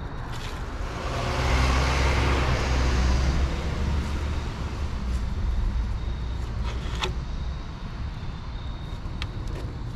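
A motor vehicle drives past on the road: engine and tyre noise swells about a second in, is loudest for about two seconds, then fades away. A sharp click about seven seconds in.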